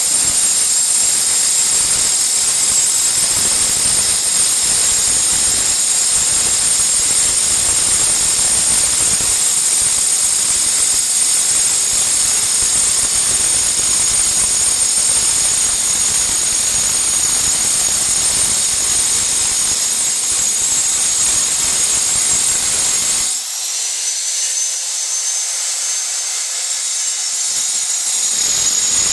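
Angle grinder cutting glass: a loud, steady high-pitched whine over harsh grinding noise. About 23 seconds in, the low grinding drops away for about five seconds while the whine rises in pitch, then the grinding returns near the end.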